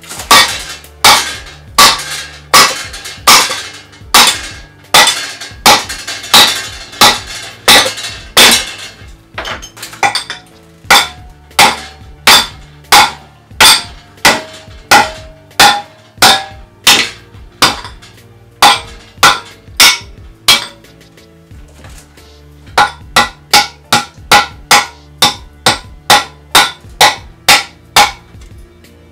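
Repeated metallic clanks of a hatchet striking the steel shell of a sealed air-conditioner compressor, one to two blows a second with a few short pauses and a faster run near the end. Some blows ring briefly. Background music with steady bass notes plays underneath.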